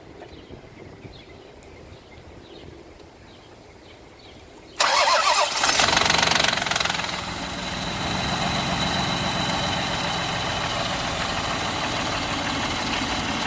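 Toyota 1MZ V6 engine started after a long standstill, about five seconds in: it catches with a loud clattering knock for about two seconds, then settles to a steady idle. The knock is the VVT-i coupler (cam phaser gear) rattling until oil pressure builds, a start-up knock that appears only after long standing.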